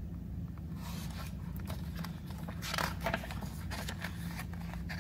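Picture book's paper pages being turned by hand: rustling and light scraping, loudest about three seconds in, over a low steady hum.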